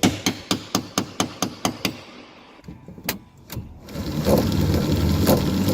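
A quick run of about nine sharp knocks, roughly four a second, followed by a few scattered knocks; then a steady low machine hum starts about four seconds in.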